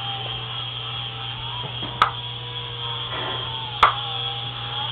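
Mini indoor remote-control helicopter's small electric motor and rotor whining steadily, the pitch wavering a little with the throttle. Two sharp knocks stand out about two seconds and about four seconds in.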